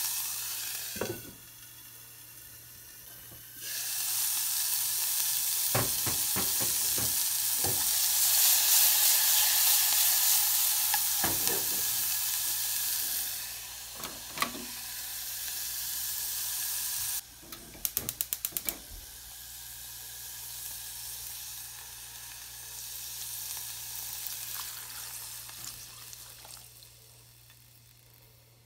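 Onion and carrot strips sizzling in a saucepan on a gas hob, a steady hiss that is loudest around the middle, with a few sharp knocks of the pot and lid. A little past the middle comes a quick run of about eight clicks, and the sizzle then carries on softer and fades toward the end.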